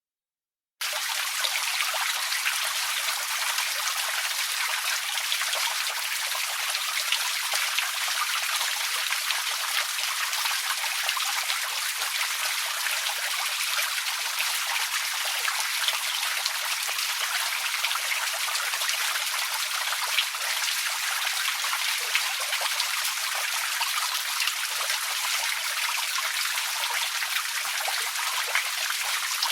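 Outdoor water fountain running steadily, an even hiss of water with no low rumble. It cuts in abruptly less than a second in, after a brief dead silence.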